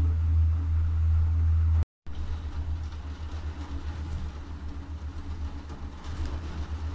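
Low rumble inside a moving cable car cabin. It cuts out completely for a moment about two seconds in, then comes back as an unsteady, pulsing rumble.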